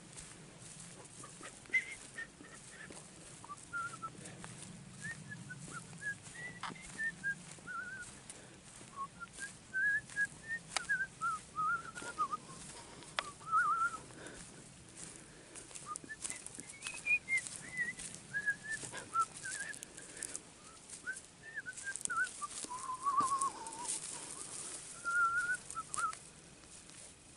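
Bare feet crunching over dry, stubbly grass with scattered crackles of dead stems and twigs. Over the steps runs a long, meandering string of whistled notes that rise and fall in pitch.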